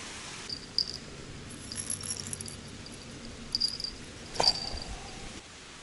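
Small bite-alarm bells on the rod tips jingling in short, irregular bursts, a sign of a bite on the line, with one sharp knock about four and a half seconds in.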